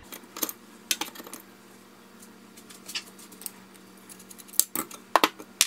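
Light metal clicks and clinks of a Stanley Bailey No. 4 hand plane being taken apart by hand: the lever cap released and the blade with its chipbreaker lifted out. A few scattered clicks, then a quick run of sharper clinks near the end.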